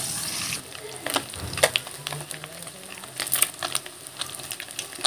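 Small fish frying in hot oil in a karahi over a wood fire. A steady sizzle drops off sharply about half a second in, then goes on quieter with scattered crackles and pops.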